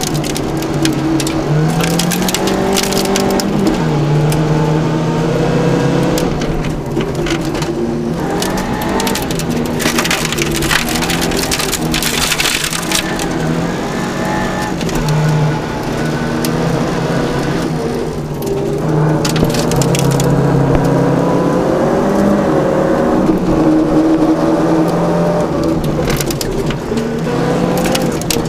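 Opel Ascona B rally car's engine heard from inside the cabin at stage pace, revs rising and falling as it is driven through the gears. Gravel and stones crackle against the underbody throughout, densest about ten to thirteen seconds in.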